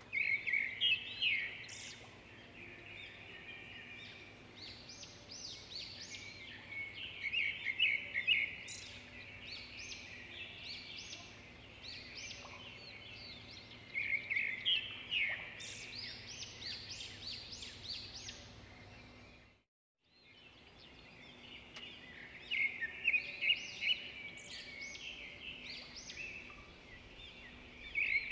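Small birds chirping and twittering in quick, overlapping calls, over a faint steady hum; the sound cuts out completely for a moment about two-thirds of the way through.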